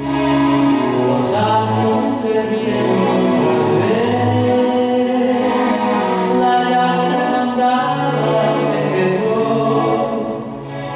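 Music of voices singing long held notes together, several pitches at once.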